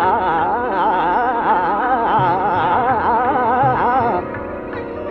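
Hindustani classical music in Raga Rageshri: a fast, wavering melodic run over a steady drone, ending about four seconds in. Two low tabla strokes fall during the run.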